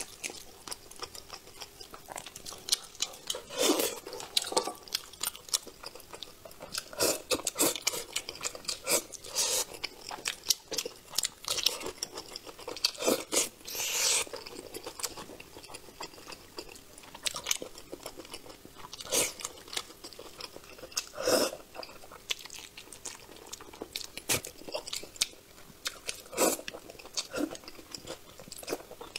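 A person eating braised crucian carp close to a clip-on microphone: wet chewing and mouth sounds, with irregular sharp clicks and smacks as meat is picked from the bones and eaten.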